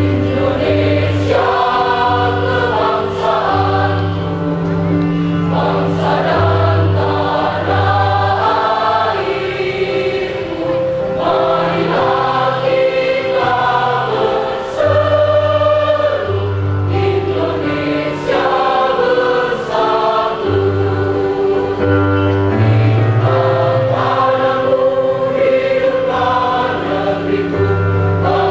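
Large choir of young women singing, in long held phrases.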